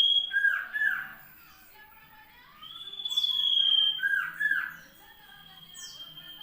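Common iora (cipow) singing: long, steady, high whistles, each ending in two or three quick, lower, down-slurred notes, repeating every three to four seconds.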